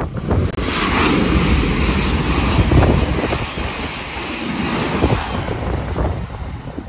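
An LNER Azuma high-speed electric train passing close by at speed: a loud rush of air and wheels on rail that swells about half a second in, peaks as the train goes past, then eases. Wind noise on the microphone throughout.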